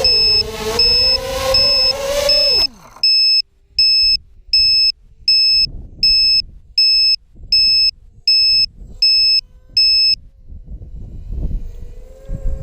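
ZMR250 quadcopter's motors whining, then spinning down sharply and stopping about two and a half seconds in. A high electronic beeper sounds about twice a second throughout and keeps beeping alone after the motors stop, until near the end, when faint wind noise takes over.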